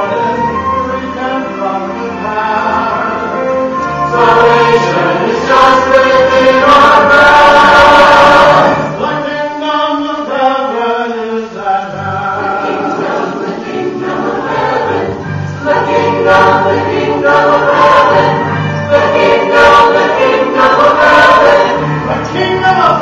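Mixed choir of men and women singing a sacred song, swelling louder about four seconds in and easing back near ten seconds.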